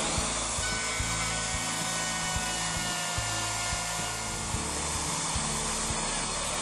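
Electric router running and cutting a shallow mortise in the edge of a wooden door: a steady, loud high-pitched hiss and motor whine that starts suddenly. Background music with a steady beat plays under it.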